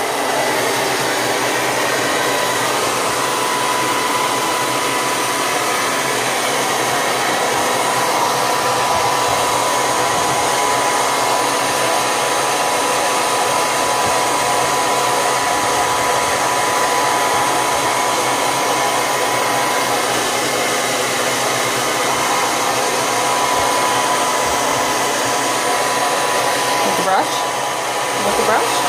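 Handheld hair dryer running steadily: a continuous blowing hiss with a faint steady whine.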